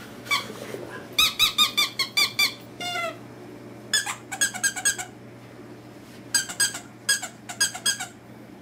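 Plush squeaky dog toy squeaking as Chihuahua puppies chew and tug on it: three quick runs of short, high squeaks of the same pitch, with a single lower, falling squeak about three seconds in.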